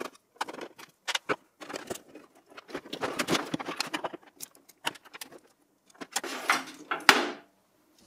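ATX power supply and its cable bundle being pulled out of a steel PC tower case: irregular clicks, knocks and rustling of wires and plastic connectors against sheet metal, with louder clatter about six to seven seconds in.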